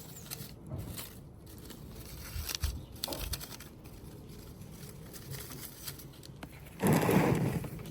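Scattered light clicks and scrapes from handling artificial flowers and their plastic stems, with a louder, rustling burst near the end.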